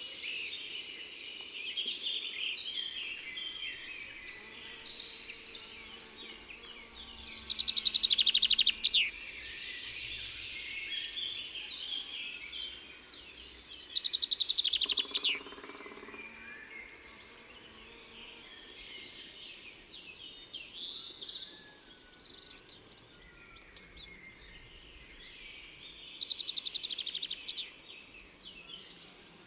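Songbirds singing: loud, high phrases of a second or two, some with fast trills, come every few seconds, with softer chirping in between.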